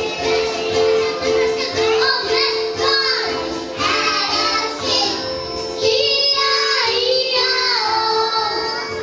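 A children's song: young voices singing a melody over a repeating instrumental accompaniment.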